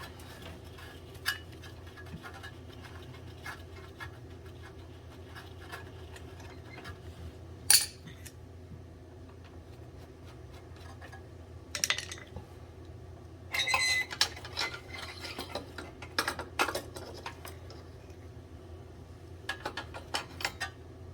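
Metal-on-metal clinks and scrapes of a wrench and tools on an oil burner's fittings as its nozzle assembly is unbolted and taken out: scattered sharp clanks, the loudest about eight seconds in, over a steady low hum.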